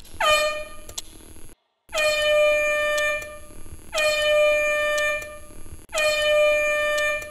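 Alarm clock's wake-up alarm going off in repeated horn-like blasts. Each blast swoops down in pitch at its start and then holds one tone, about a second and a half long, every two seconds. The first blast is cut short.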